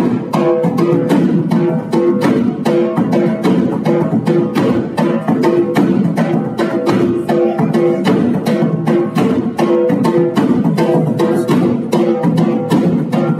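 Music with plucked string instruments over a quick, steady beat.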